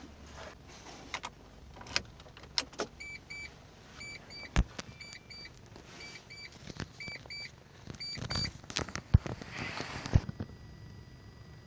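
Sharp clicks and knocks of a key and handling inside a small car's cabin. The dashboard warning chime sounds in short double beeps, repeating about once a second from about three seconds in to about eight; the engine is not running.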